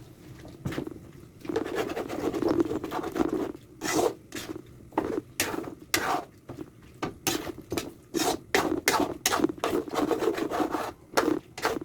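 A spoon stirring and scraping in a cooking pot of banana and coconut-milk stew, in short repeated strokes that come quicker in the second half.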